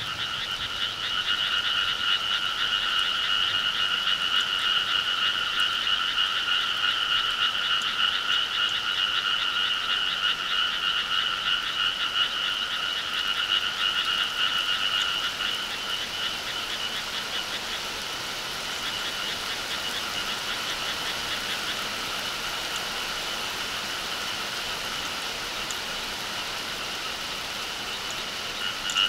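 A dense chorus of many frogs croaking together, a fast continuous pulsing in two pitch bands. The chorus grows somewhat quieter a little past halfway.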